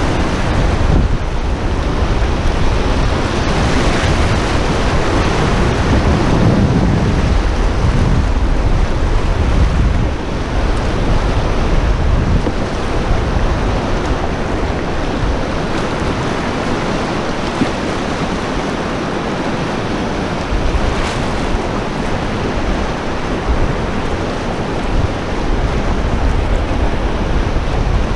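Whitewater of a glacial river rushing and splashing close around a canoe running rapids. A deep low rumble under the water noise eases about halfway through.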